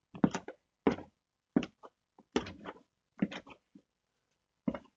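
Hand soil blocker being worked in damp potting mix: a run of about six dull knocks, a little under a second apart, with a longer pause before the last one.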